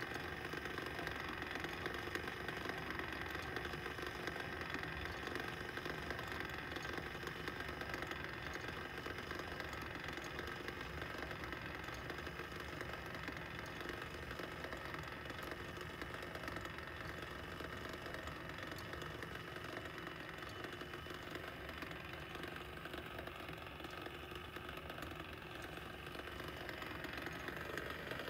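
Small battery-driven motor of a Form "S" kinetic sculpture running steadily, a continuous mechanical hum as it turns the curved metal rods.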